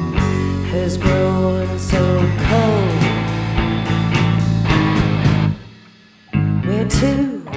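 A band playing a rock song live: electric guitar and a Casio keyboard over a beat. About three-quarters of the way through, the music breaks off for under a second, then comes back in.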